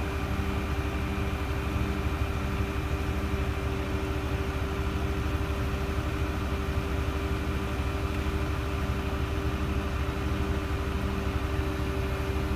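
Diesel engine of a truck-mounted concrete pump running steadily to drive the boom as it unfolds, with a regular low pulse about one and a half times a second.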